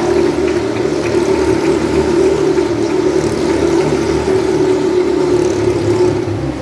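Motorcycle engine running at steady revs as the bike circles the wooden Wall of Death drum, its note easing off right at the end.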